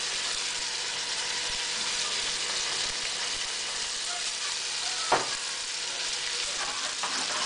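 Prawns sizzling in a hot frying pan of tomato and shallot sauce as they are laid in by hand: a steady hiss, with one sharp click about five seconds in.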